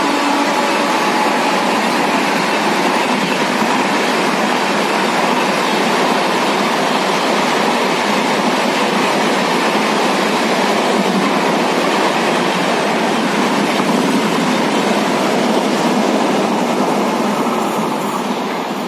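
Rajdhani Express passenger train running through a station at speed without stopping, its coaches' wheels rolling over the rails in a steady loud rush. Near the end it starts to fade as the last coach passes and moves away.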